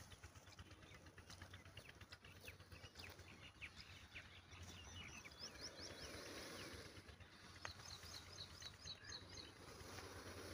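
Faint outdoor ambience with small birds chirping in quick runs of short high notes, one run a few seconds in and another near the end.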